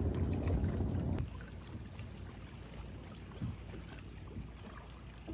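Low rumble of a boat under way, which cuts off abruptly about a second in. Only faint small knocks follow.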